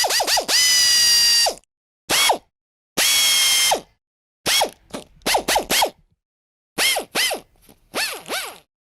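Mechanical tool sound effect: short runs of rapid ratchet-like clicks, alternating with stretches of about a second of a steady pitched whir, repeated with short silent gaps.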